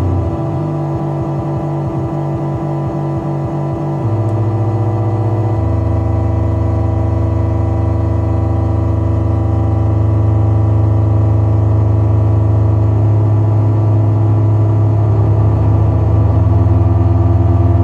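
Handmade six-oscillator drone synthesizer (a METSÄÄN Dirty Drone based on the 808Cydrone) playing a bass-heavy drone, its voices bent by fingers on the body-contact points. For the first few seconds it pulses in a fast rhythm, then it becomes a steady low hum that shifts in pitch and tone a few times.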